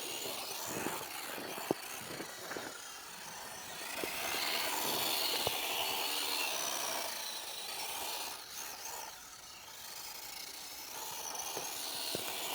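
WPL D12 RC drift truck's brushed electric motor and gears whining, the pitch rising and falling with throttle, over a rasping, scuffing noise as it drives.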